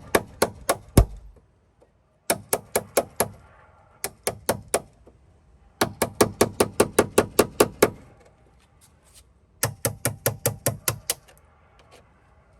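A hammer striking an old chisel in quick runs of sharp metallic blows, about five or six a second, in five bursts with short pauses. The chisel is being driven into a seized, corroded aluminium door hinge liner in a steel hinge to cut its lip off.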